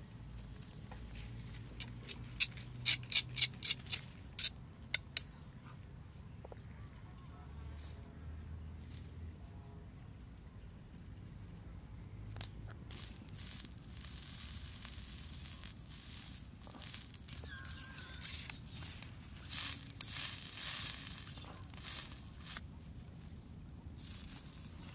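A quick run of sharp snaps a couple of seconds in, then stretches of rustling and scraping, from twigs and a stick being handled and worked over a small wood fire.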